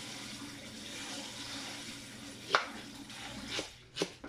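Steady hiss of a running tap that stops about three and a half seconds in. A kitchen knife knocks on a wooden cutting board three times in the second half, the first knock the loudest.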